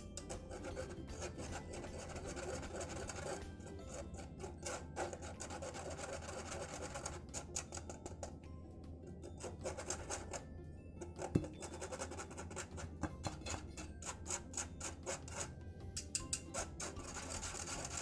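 Flour being sifted through a kitchen sieve: repeated short rubbing and scraping strokes, over background music.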